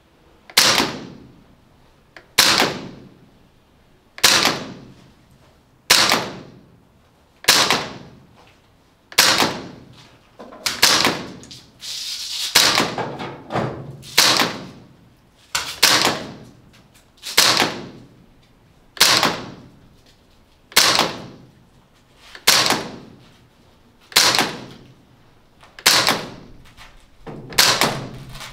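APFG MPX gas blowback airsoft rifle firing single shots on green gas, about one every one and a half to two seconds. Each shot is a sharp crack of the shot and bolt cycling, with a short echo off the range walls.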